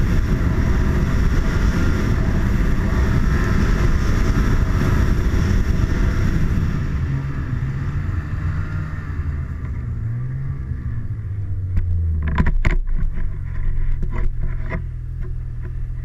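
Snowmobile engine running hard, then easing off about seven seconds in and settling to a lower steady run as the sled slows. A few sharp knocks come near the end.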